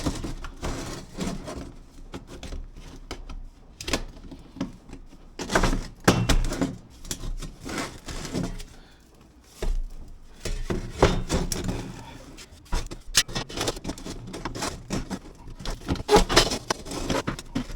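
Sheet-metal chimney liner pipe sections clanking and rattling as they are handled and fitted together for screwing: a string of irregular metallic knocks and scrapes, with a quieter lull about halfway through.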